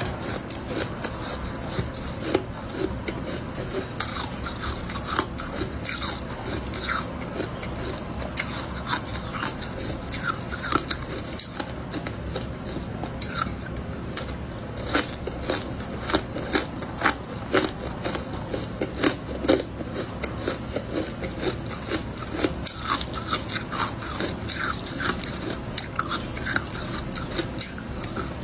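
Close-miked biting and chewing of powdery freezer frost: irregular soft crunches and crackles in quick succession, over a low steady hum.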